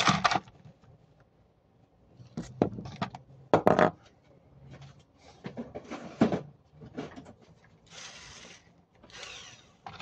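Hand-handling noises: scattered knocks and rattles from rummaging among screws and parts in a plastic bowl and handling the air-conditioner's plastic housing, with two short scraping sounds near the end.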